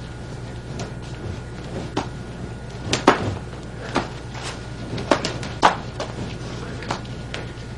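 A pair of nunchaku being twirled, with irregular sharp clacks and knocks as the sticks and chains strike. The loudest knock is about three seconds in and two more come between five and six seconds in. A steady low hum runs underneath.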